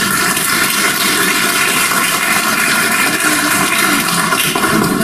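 An audience applauding steadily, a round of applause that approves the auditor's re-election by acclamation. It starts suddenly and dies down near the end.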